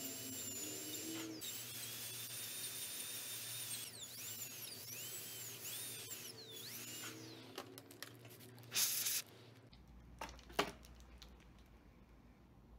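High-speed dental handpiece whining at a steady high pitch, then dipping in pitch and recovering several times as the bur cuts into the decayed front tooth, and winding down. A short loud hiss comes about nine seconds in, followed by a couple of light clicks.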